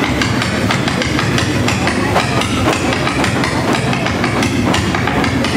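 Folklórico dancers' zapateado: many shoes stamping rapid, rhythmic heel-and-toe beats on a wooden stage floor.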